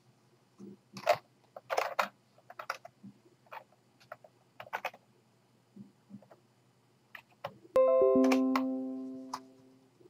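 Scattered faint clicks, then about eight seconds in a computer notification chime: three descending notes that overlap and ring out for about two seconds. It is the alert for a screenshot having been saved to Dropbox.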